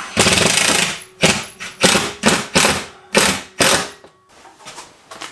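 Cordless power driver sinking a 3-inch decking screw with a washer into the heater's mounting bracket: one longer run for about a second, then about seven short pulses as the screw is snugged down.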